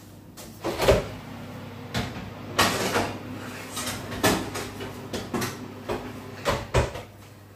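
Oven door being opened and shut as the food goes in: a run of clunks and knocks, the loudest about a second in and another pair near the end.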